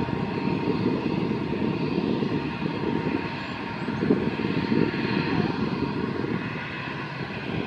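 Airbus A319's twin jet engines running at low power as the airliner taxis onto the runway to line up: a steady rumble with a faint thin whine above it.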